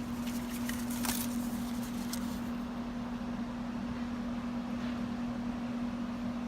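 A steady low hum with faint hiss, and a few light clicks and rustles of handling in the first couple of seconds.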